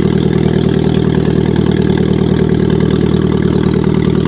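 An old tractor's engine running at a steady speed as the tractor drives along, heard from the driver's seat: an even drone with no change in pitch.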